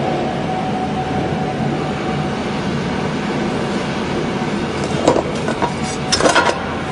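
Automatic cable cutting and stripping machine running with a steady mechanical whir and hum, with a few sharp clacks about five seconds in and a short rattling burst of clacks about a second later.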